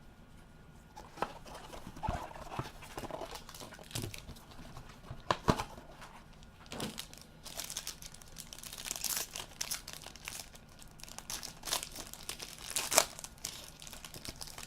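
Packaging of a trading-card box being opened and handled: crinkling and tearing of wrapper with irregular clicks and taps, and sharper snaps about five and thirteen seconds in.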